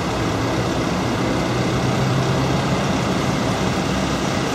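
Steady vehicle noise: a low heavy-engine hum over a constant roar of traffic, the hum swelling slightly a second or two in.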